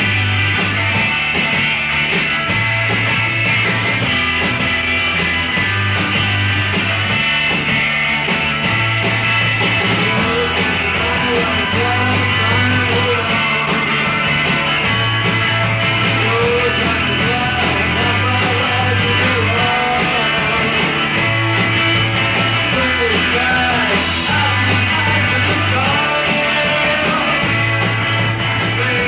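Live rock band playing: electric guitars and drums over a bass line that rocks between two notes, about a second on each. Wavering lead lines come in over the top about ten seconds in.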